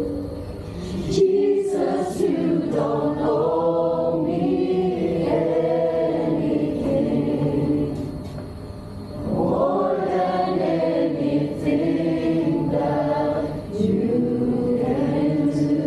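Congregation and worship team singing a worship song together, many voices in long sung phrases, with a short break between phrases about halfway through.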